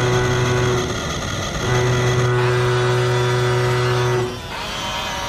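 Remote-control toy dump truck on crawler tracks running as it drives forward: a steady mechanical hum that breaks off for about a second near the start, comes back, and stops near the end.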